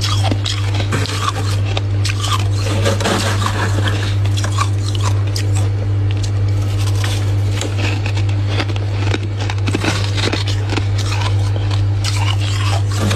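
Freezer frost being bitten and chewed close to the microphone: a continuous run of small crunches and scrapes over a steady low hum.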